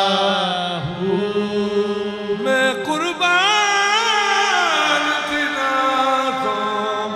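A man singing a drawn-out, wordless devotional line in qawwali style over harmonium accompaniment. He holds a note, then turns it through quick pitch ornaments and sweeps about three seconds in, and the line falls away near the end.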